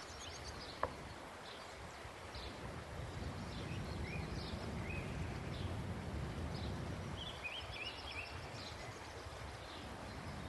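Small birds chirping now and then, with short quick notes, over a low rumble of outdoor background noise that swells in the middle. A single sharp click sounds about a second in.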